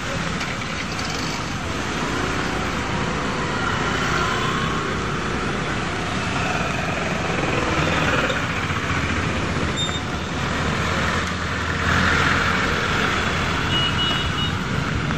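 Steady road-traffic noise along a flooded street, a continuous rushing haze of engines and tyres through water, with a faint high beep near the end.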